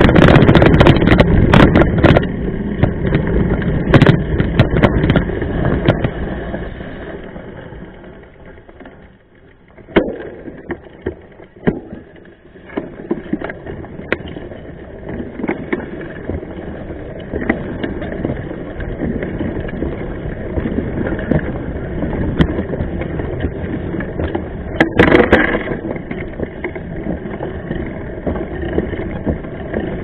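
Mountain bike rolling over a rough dirt and gravel trail, picked up close to the knobby front tyre: a loud, rough rumble of tyre and frame rattle with sharp knocks from bumps. The noise drops low for a few seconds near the middle, then picks up again.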